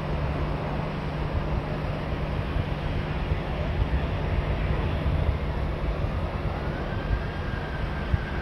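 Jet aircraft engines running with a steady rumble, and a thin whine that starts to rise in pitch near the end.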